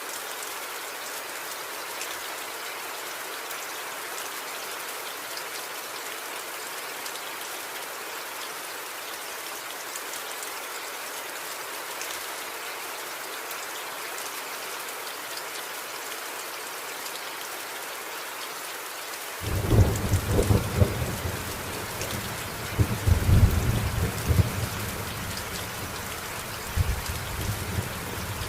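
Steady rain hissing and pattering. About two-thirds of the way through, a deep rumble of thunder breaks in suddenly and keeps rolling in several loud surges.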